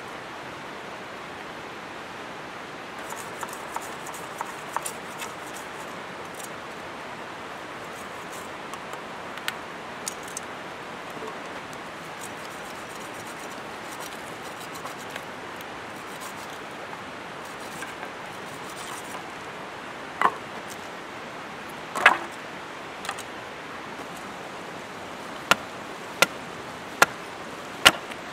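Steady rush of river water, with light clicks of sticks knocking on pebbles and a few louder wooden knocks past the middle. Near the end, a hatchet chops into wood in a regular run of sharp strikes, a little under one a second.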